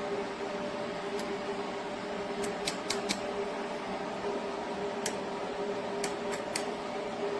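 A run of short, sharp metallic clicks from hand tools being handled, about nine in all and several in quick succession, over a steady hum.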